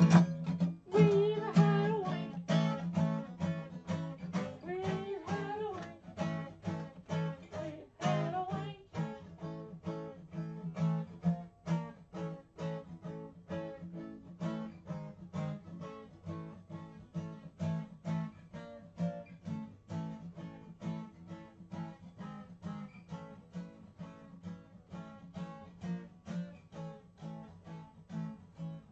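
Acoustic guitar strummed in a steady, even rhythm, with a few bending notes in the first several seconds.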